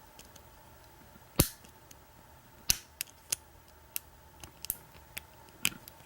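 Lock pick clicking against the pins and keyway of an American 1100 padlock's pin-tumbler cylinder during single-pin picking, under tension from the wrench. There are about eight short, sharp, irregular clicks; the loudest is about one and a half seconds in, and several come close together near the end.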